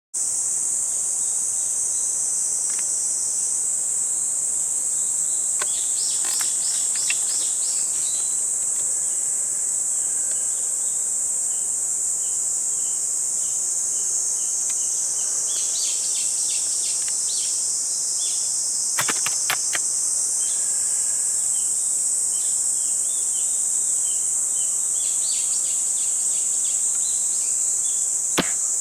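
A steady, high-pitched insect chorus of crickets, with scattered short chirps over it and two sharp clicks, one about two-thirds of the way in and one near the end.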